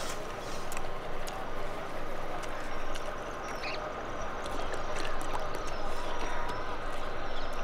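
Steady background noise with voices mixed in.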